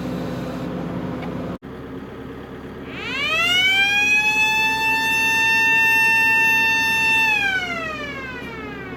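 Blast warning siren sounding one long wail: it winds up in pitch, holds a steady note for about four seconds, then winds down near the end, the warning given before a rock blast is fired. A steady engine hum runs underneath.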